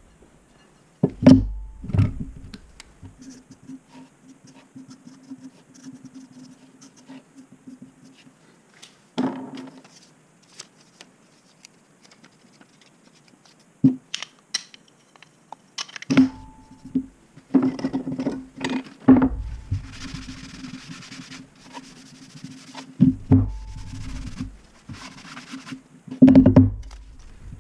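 Knocks, thumps and scraping as a steel bar, a handle block and a paper template are set down and slid around on a plastic cutting mat on a workbench. The steel bar is O-1 tool steel. Past the middle there is a couple of seconds of hissy scraping, and a faint low hum runs underneath.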